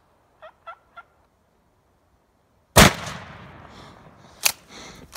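Three short turkey clucks, then a single shotgun blast a couple of seconds later that echoes and slowly fades, followed by two sharp clicks.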